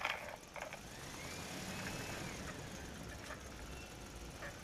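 A plastic toy dump truck handled on a hard floor: a sharp plastic knock right at the start, then a faint whir that rises and falls, with a couple of light clicks later.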